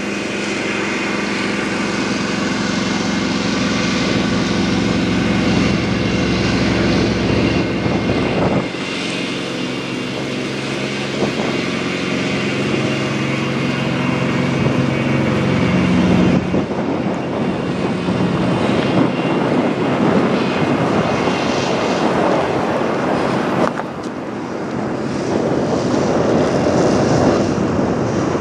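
Heavy semi truck diesel engine idling with a steady low throb. The sound shifts abruptly three times, about 9, 16 and 24 seconds in.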